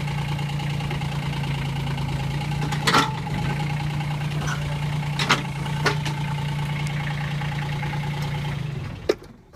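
Diesel excavator engine idling steadily just after a cold start on glow plugs, with a few sharp knocks over it. The engine shuts off near the end, followed by a single click.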